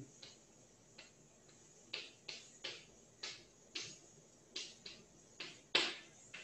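Chalk writing on a blackboard: a string of short, irregular taps and scrapes as the strokes are drawn, the loudest one near the end.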